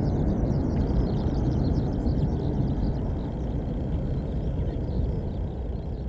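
Airbus A321's IAE V2500 jet engines rumbling as the airliner climbs away after takeoff, the sound slowly fading as it recedes.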